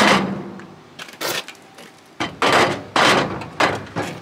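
Aluminium loading ramps clanking and scraping against the trailer's metal tail as they are slotted into place, a loud clatter at the start followed by several shorter knocks and scrapes.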